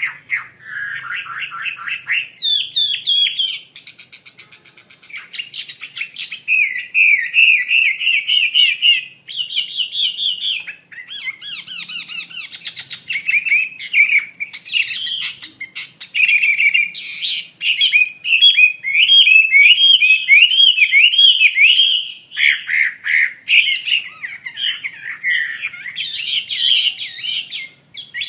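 Chinese hwamei in full song: a long, varied run of loud whistled phrases, rapid trills and slurred notes, changing phrase every second or two with hardly a pause.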